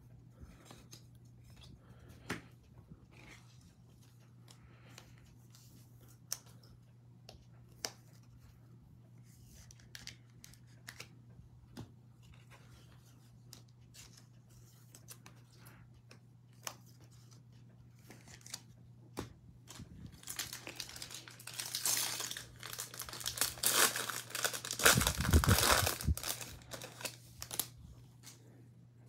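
A sealed trading-card pack being torn open, its wrapper crinkling loudly for several seconds in the second half. Before that come only faint scattered clicks of cards being handled, over a steady low hum.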